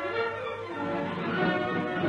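Orchestral music led by strings, growing fuller in the lower instruments just under a second in, over a steady low hum.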